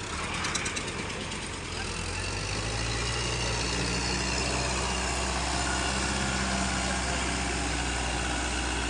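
Sonalika tractor's diesel engine working hard under load as it drags a loaded trolley through deep mud. The revs climb about two seconds in and then hold steady.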